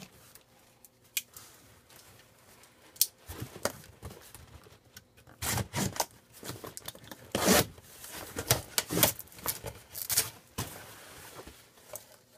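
Packing tape being torn open on a cardboard shipping box: a string of irregular scraping rips starting about three seconds in, loudest around the middle.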